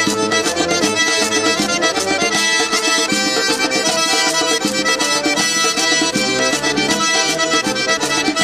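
Instrumental theme music for a news programme's opening titles, lively with a fast, steady beat.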